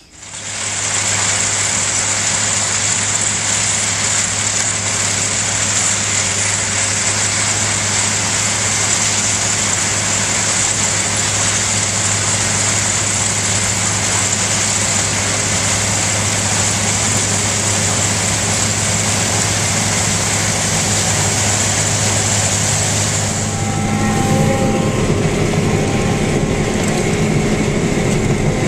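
Vehicle engine running steadily on a ride through a field, with a steady high hiss over a low hum. About 23 seconds in the sound changes: the hiss drops away and a heavier, lower engine sound takes over.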